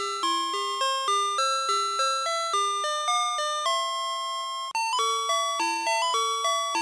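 VTech Alphabert's Sonic Phonix electronic toy playing a tune of bright, chime-like electronic notes, about three notes a second. The melody cuts off for an instant about four and a half seconds in and a new tune starts.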